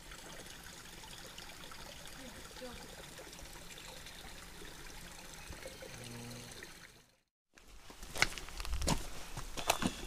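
Small rocky creek trickling steadily. After a brief break, footsteps on loose shale and stones, irregular and louder, start a couple of seconds before the end.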